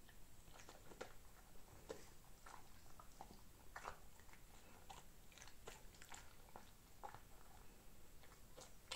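A dog chewing and biting into a piece of Vienna baguette: faint, irregular crunches of the bread, several a second.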